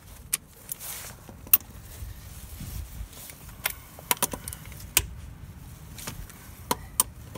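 Scattered sharp metal clinks and clicks, about eight of them at irregular intervals over several seconds, as the 19 mm wheel bolts are worked off by hand with hand tools.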